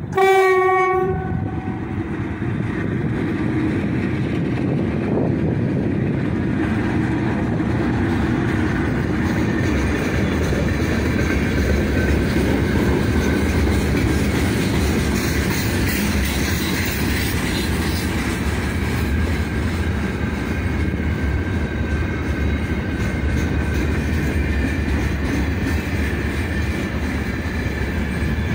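Electric locomotive horn sounds one short blast of about a second as the 3ES5K "Ermak" freight train reaches the camera. Then the freight wagons run past close by with a loud, steady rumble of wheels on rail and clickety-clack over the rail joints.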